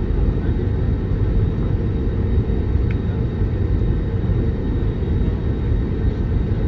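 Steady low rumble inside a jet airliner's cabin as it taxis slowly on the ground.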